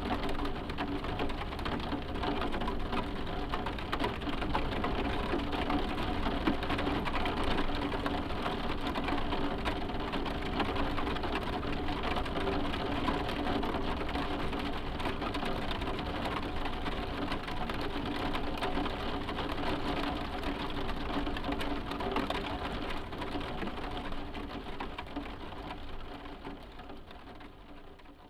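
Rain falling on a roof: a dense, steady patter of drops, with a faint steady hum underneath. It fades out over the last few seconds.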